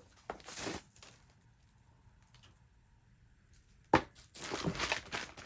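Packaging and bag parts being handled: a brief rustle, a quiet stretch, then one sharp click about four seconds in, followed by more rustling.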